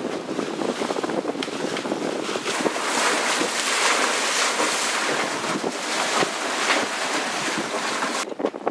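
Wind buffeting the microphone over the rush and splash of choppy water along the hull of a sailing yacht under sail. The hiss changes abruptly near the end.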